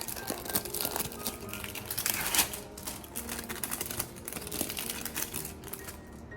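Egg frying in butter in a pan, sizzling and crackling in dense, irregular pops that stop abruptly near the end.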